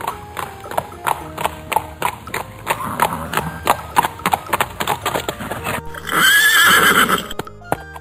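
A herd of horses galloping, with a fast run of hoofbeats, and a horse giving one loud whinny about six seconds in. Background music plays under it and comes forward near the end as the hoofbeats fade.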